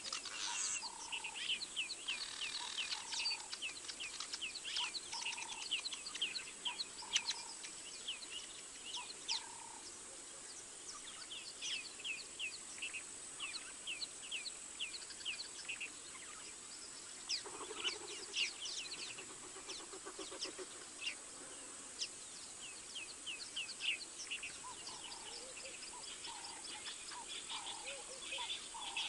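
Wild birds calling: a steady stream of short, quick chirps, with lower calls now and then, over a thin steady high tone.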